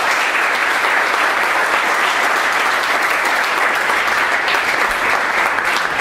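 Audience applauding: dense, steady clapping, with a few separate claps standing out near the end.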